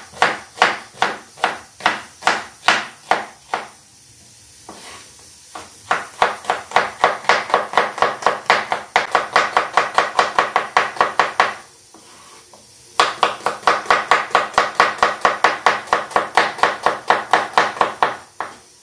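Kitchen knife slicing red onions on a wooden cutting board: a steady run of sharp knocks on the board, about three a second at first and faster, about five a second, after a short pause. A second brief pause comes about two thirds of the way through.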